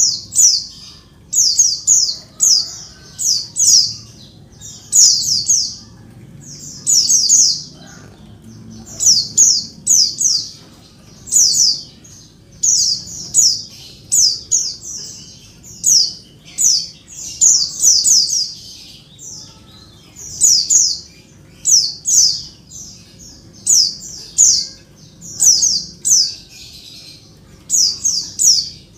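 White-eye (pleci) calling in quick clusters of two to four high, down-slurred chips, repeated every second or two. The uploader presents it as a female calling for a male, used to provoke male white-eyes into singing.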